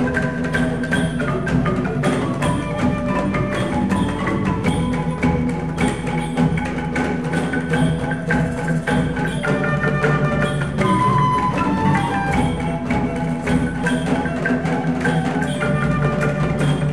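Live music with a steady percussion beat and changing pitched melody lines, recorded on an HTC 10 phone's microphone.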